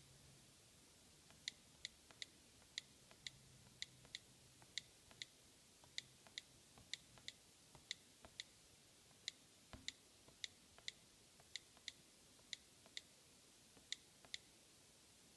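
Short, sharp clicks at an irregular pace, about two a second, over a quiet room background, with one duller knock about ten seconds in.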